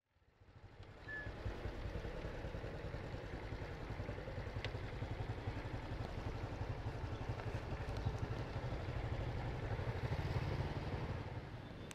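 Small motorbike engines running in street traffic, a steady low hum that fades in at the start and dies away near the end.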